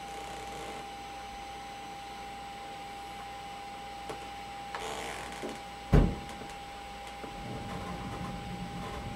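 Desktop computer fan running during the first boot after a graphics card install, with a steady high whine; it is very annoying. There is a rustle about five seconds in and a single thump just after, and from about seven seconds the fan noise grows louder and rougher.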